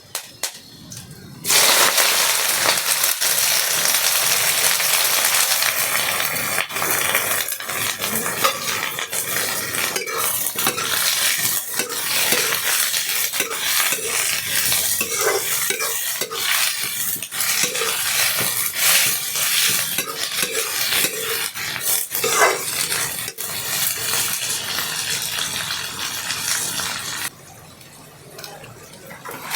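Food frying and sizzling in hot oil in a pan, stirred with a spatula that scrapes and knocks against the pan. The sizzle starts suddenly about a second and a half in and stops a couple of seconds before the end.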